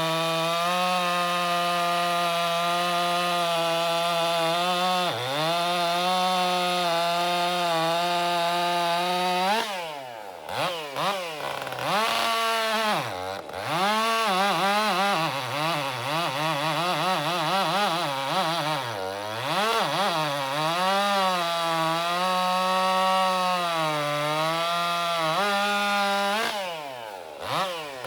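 Stihl MS 400 C-M two-stroke chainsaw cutting wood at full throttle. It runs steadily for about ten seconds, then its engine speed swings up and down repeatedly as the load in the cut changes. It steadies again, then drops briefly near the end before climbing back up.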